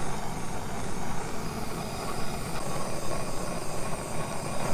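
Hand-held gas torch flame burning steadily as it is swept around resin-filled heat shrink to shrink it over a cable joint.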